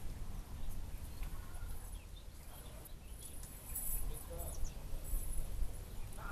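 Outdoor ambience: scattered short, high bird chirps over a steady low rumble.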